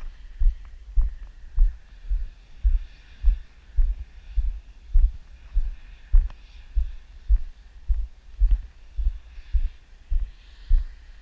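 A deep, evenly spaced thumping pulse, about three beats every two seconds, like a slow heartbeat or bass drum, with a faint steady high tone above it.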